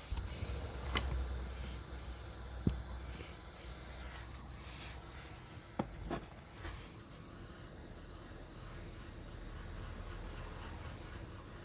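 Steady hiss of a heat tool shrinking and melting a solder-seal wire connector, with a few light knocks and clicks of handling.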